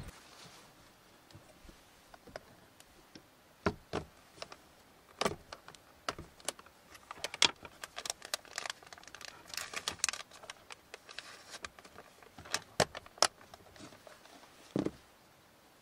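A small plastic storage box being handled: scattered sharp clicks and knocks of its plastic lid and body, with a busier patch of clicking and rustling around ten seconds in and a duller knock near the end as it is set on the wooden shelf.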